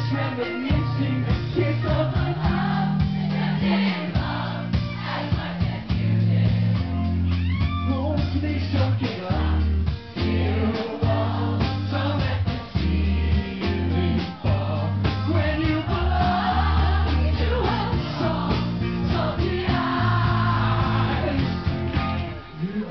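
Rock band playing live, with electric guitar, a heavy bass line moving in steps, and a man singing.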